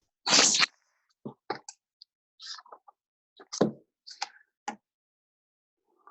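A short rustle, then a series of light, irregular taps and clicks, one of them sharper, about three and a half seconds in.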